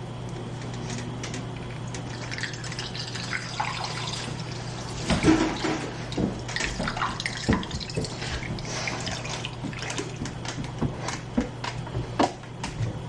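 Water running from a kitchen tap into a sink, with scattered clinks and knocks of dishes, over a steady low hum.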